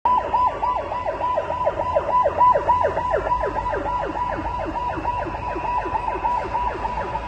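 Police water cannon truck's siren on a fast yelp: each note jumps up and falls away, about five times a second, over a low engine rumble.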